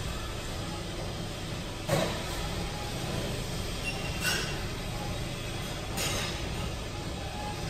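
Three short clicks from a pub scratchcard gaming terminal as its panels are revealed, about two seconds apart, with the first the loudest, over a steady background hum.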